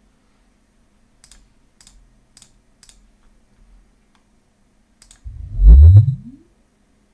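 A few faint clicks, then a sine sweep played through the car's subwoofer, a low tone rising in pitch for about a second and fading as it climbs above the subwoofer's 80 Hz low-pass.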